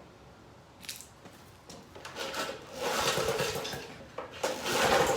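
Snapper lawn mower being pull-started with the choke on: two rasping pulls of the recoil starter as the engine turns over, the first about two seconds in, the second near the end.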